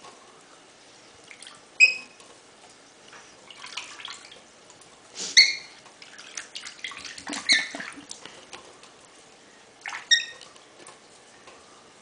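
Wet cockatiel giving about four short, high chirps, with the rustle of its feathers as it shakes and preens after a bath.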